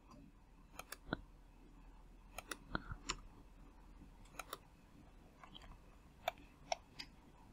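Computer mouse buttons clicking, about a dozen faint, irregular clicks, some in quick pairs, as objects are picked on screen.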